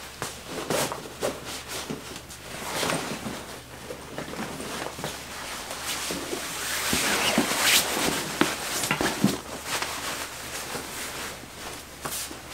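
Quilted nylon jacket and backpack rustling as the backpack is lifted and shouldered, with scattered light knocks and clicks. The rustle is loudest a little past halfway.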